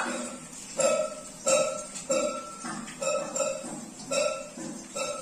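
Metal spatula tapping against a metal tray of fried aubergine slices: a run of short ringing clinks, roughly one or two a second, at uneven intervals.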